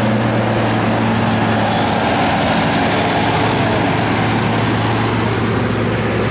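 A heavy vehicle's engine running steadily with a low, even hum.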